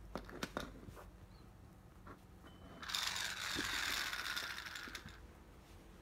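A mechanical toy mouse's gears whirring for about two seconds in the middle, after a few light taps and clicks near the start.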